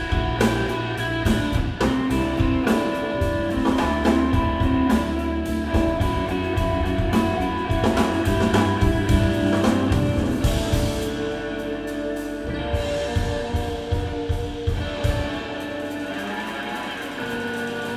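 Instrumental guitar trio playing live: Fender electric guitar, electric bass and drum kit in a steady groove.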